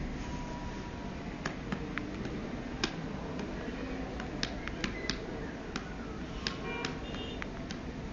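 Key clicks from a Sony Ericsson mobile phone as its menu buttons are pressed, about a dozen sharp, irregularly spaced clicks.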